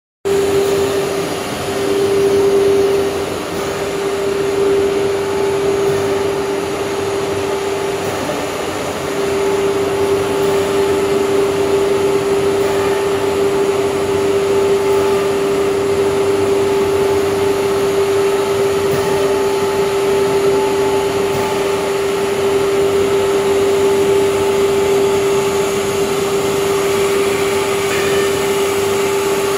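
Four-spindle CNC nesting router running while working a wood panel: a steady spindle whine over a continuous rushing hiss of air and dust extraction. The whine falters briefly a few times in the first ten seconds, then holds steady.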